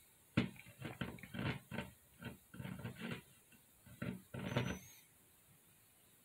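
A child's voice making growling animal noises for a fight between toy animals: a quick run of short growls and grunts, ending in a longer one about four and a half seconds in.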